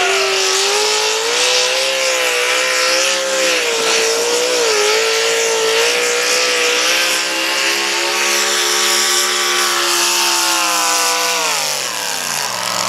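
Modified Chevrolet pulling truck's engine held at full throttle, working hard against the weight-transfer sled. The pitch stays high and steady apart from a brief dip about halfway through, then falls away near the end as the engine speed drops.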